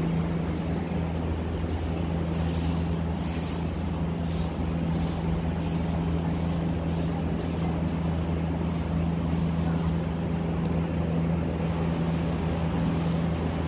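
Straw broom sweeping over a terrazzo floor in short, repeated swishes, over a loud steady low hum from some machine.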